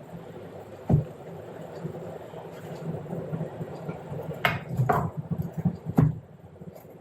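Kitchen handling noise while onions are packed into jars: a sharp knock about a second in, then a short run of knocks and clatter, the loudest near the end.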